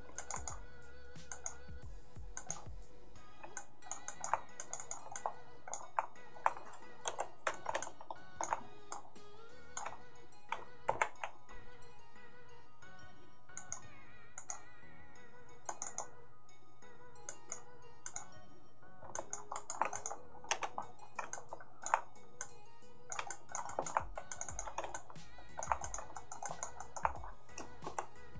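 Soft background music of sustained tones, with computer keys clicking irregularly over it.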